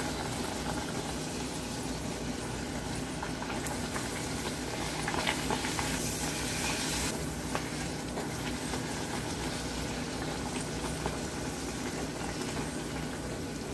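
Wheat-flour puris deep-frying in hot oil in a kadhai, a steady bubbling sizzle. It swells louder about five seconds in as a second raw puri goes into the oil.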